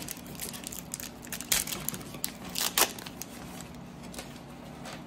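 Wrapper of an NBA Hoops basketball card pack being torn open and crinkled by hand, with sharp crackles, loudest about a second and a half and nearly three seconds in, then quieting down.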